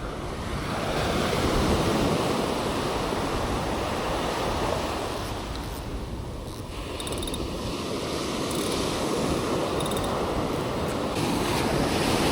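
Ocean surf washing onto a beach, a steady rush of waves that swells, eases about halfway through, then builds again, with some wind on the microphone.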